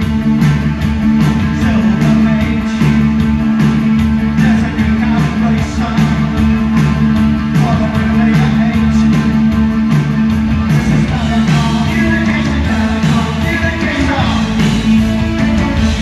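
Live rock band heard through the stage's PA system: electric guitars, keyboards and a steady drum beat, with vocals coming in about halfway through.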